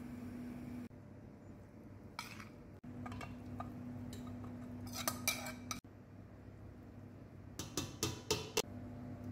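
A metal spoon scraping and clinking against a ceramic plate and a steel pot while food is mixed and scraped out, in several short clusters of clinks. A steady low hum runs underneath.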